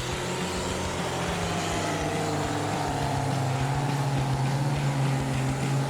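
Heavy log truck engine running under load, its pitch rising slightly about halfway through.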